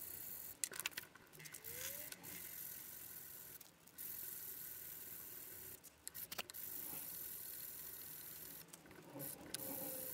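Sandpaper on a block being rubbed along a wooden knife handle by hand: a steady scratchy hiss in long stretches, broken by brief pauses and a few clicks.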